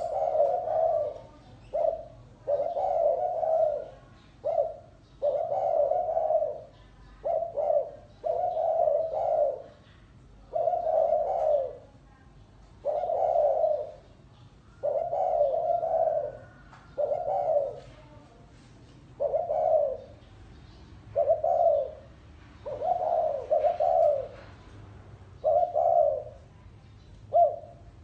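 Spotted dove cooing over and over, a run of low coos each about a second long, one following another every second or two.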